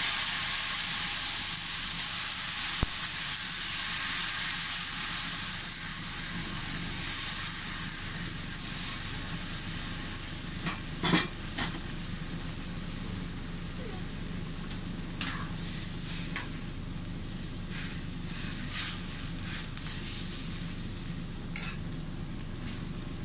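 Hot water poured into a wok of frying tilapia hisses and sizzles loudly against the hot oil, then dies down over several seconds into a steady bubbling boil, with a few sharp ticks in the second half.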